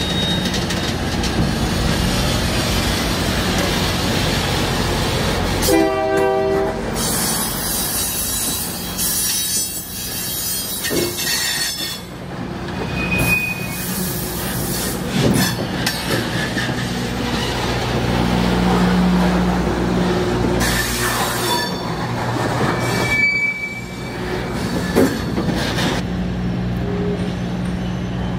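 Freight cars rolling slowly past at close range, their steel wheels squealing and screeching on the rails over a steady low diesel drone. A short train horn blast sounds about six seconds in.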